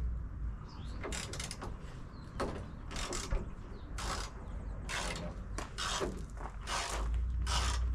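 Hand ratchet wrench turning a bolt: short bursts of ratcheting clicks, repeated about once a second, as the handle is swung back and forth.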